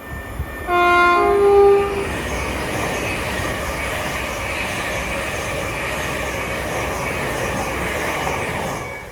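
Train sounding a two-note horn about a second in, the second note slightly higher, then running past with a steady rumble and clatter of wheels on rail that fades near the end.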